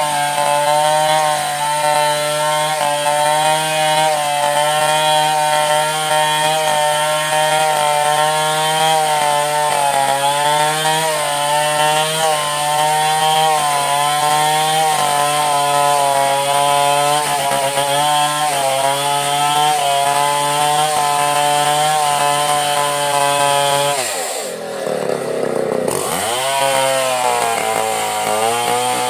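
Stihl chainsaw running at high revs, cutting coconut wood. Near the end the revs fall away sharply and then climb back up.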